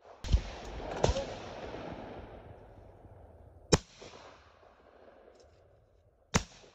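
A pair of shotgun shots fired at clay targets, about three-quarters of a second apart, and the report rolls away for a few seconds. Two more sharp cracks follow, about two and a half seconds apart.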